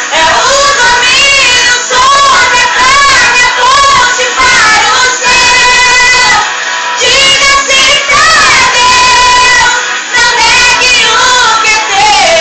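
A woman and a young girl singing a Brazilian gospel song in Portuguese together, sustained phrases with wavering held notes and short breaks between lines.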